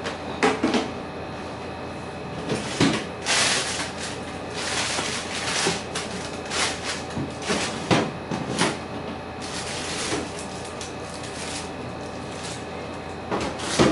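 Irregular knocks and clatters mixed with short bursts of rustling from things being handled, with a few louder knocks near the start and again near the end.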